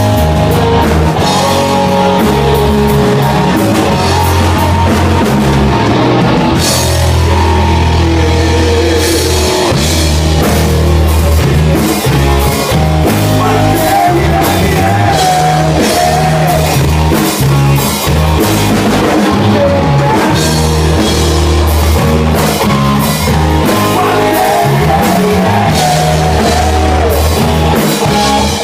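Rock band playing loudly, with a drum kit, electric guitar and bass in a heavy, metal-leaning style, and singing at times.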